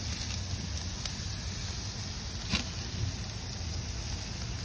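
Chicken thighs sizzling on a gas barbecue grill: a steady hiss with a couple of sharp pops, over a low rumble.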